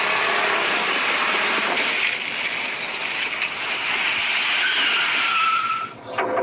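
Several sport motorcycles running together as a group rides along, a steady engine noise with a faint rising pitch near the end before it cuts off suddenly about six seconds in.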